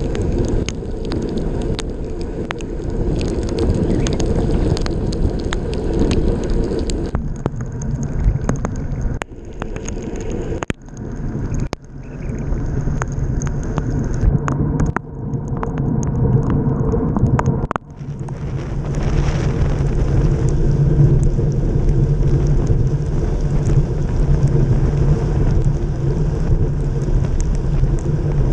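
Heavy rain and wind noise on a bicycle-mounted action camera riding fast on a wet road, with frequent sharp ticks of raindrops striking the camera housing. The noise dips sharply a few times in the middle, then comes back stronger and deeper.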